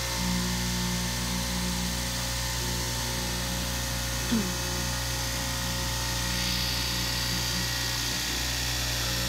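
Upright straight-knife electric cloth-cutting machine running steadily, its vertical blade cutting through stacked layers of fabric, with a steady motor hum. A brief falling squeak comes about four and a half seconds in.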